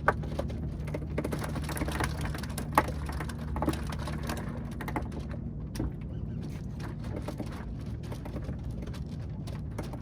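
A motor hums steadily and low, fading after about five seconds, with scattered clicks and knocks, the sharpest a little under three seconds in.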